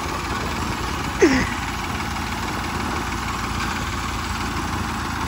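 Farmtrac 60 and other tractor diesel engines idling steadily. About a second in, a brief loud sound falls sharply in pitch over the rumble.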